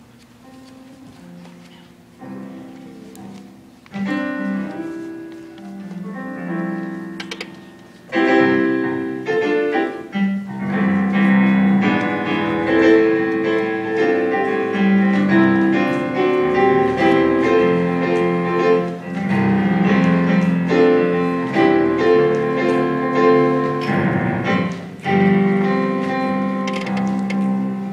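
Piano playing a slow chordal introduction, starting softly and growing louder about four and then eight seconds in.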